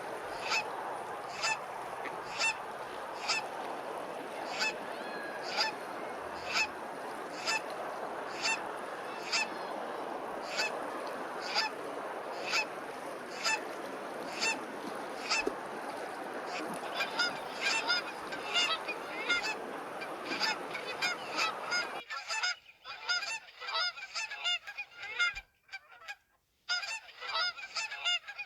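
Geese honking over and over, about once a second at first and then faster and overlapping. Under the honks runs a steady background hiss that stops abruptly about 22 seconds in.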